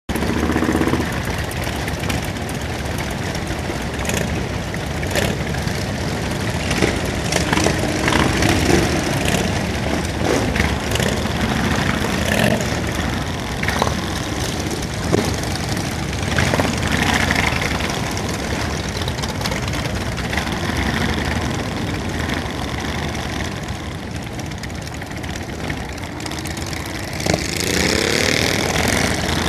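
Motorcycle engines running at idle, with short knocks scattered through, and one engine revving up over the last couple of seconds.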